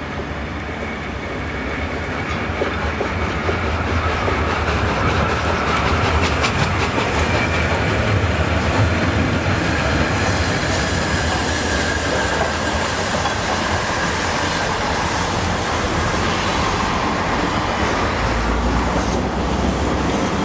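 Peppercorn A1 Pacific steam locomotive 60163 Tornado running tender-first past close by, with the rumble of its wheels and clicking over rail joints. It grows louder over the first few seconds as it approaches, then stays steady as it passes.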